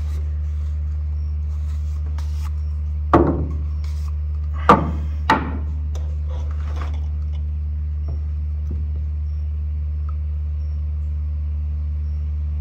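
PVC pipe and fittings being handled, with three sharp hollow knocks in quick succession near the middle, over a steady low hum.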